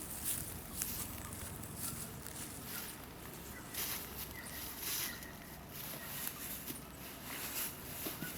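Irregular soft footsteps and scuffs with some rustling over steady outdoor background noise, and a few faint chirps about four seconds in.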